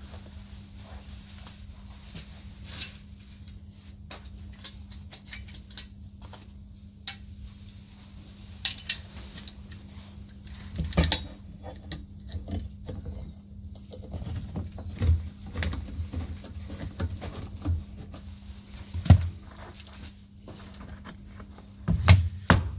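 Scattered clicks, taps and knocks of tools and metal parts being handled, irregular and at times louder, over a steady low hum.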